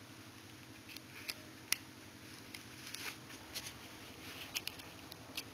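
Light plastic clicks and handling noise as an SD card is pushed into a USB card reader: a string of small, sharp ticks, the sharpest a little under two seconds in, over a faint hum.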